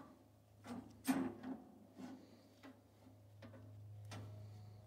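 A series of sharp knocks and clacks at irregular intervals, each with a short ring, the loudest about a second in, over a low steady hum.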